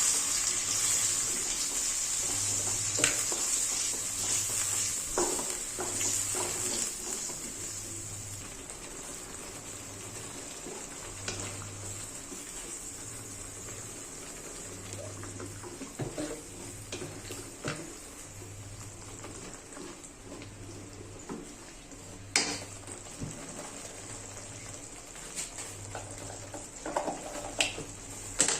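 Food sizzling in a frying pan: a steady hiss that is louder for the first several seconds, then eases to a quieter sizzle. Occasional clinks and taps of a utensil against the pan are heard.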